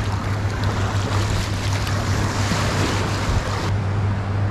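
Shallow surf washing in over the sand at the water's edge, with steady wind noise on the microphone. The surf hiss drops away abruptly near the end, leaving mostly the wind.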